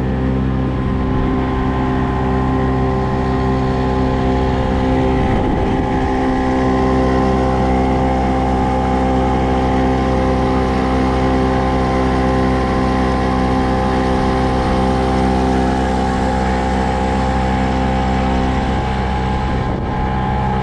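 Motorboat engine running at a steady speed, its even hum holding one pitch throughout.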